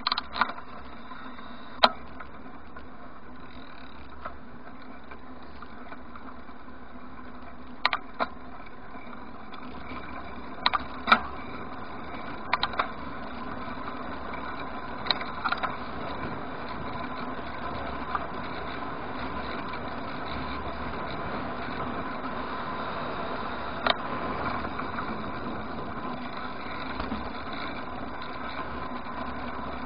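Bicycle ride heard through a handlebar-mounted camera: a steady hiss and rumble of tyres on the road and passing air, with sharp clicks and knocks from the bike and mount about a dozen times, the loudest about two seconds in and around eleven seconds.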